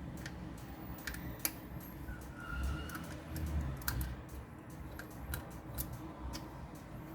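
Scattered light clicks and taps from handling a smartphone replacement screen and its packaging.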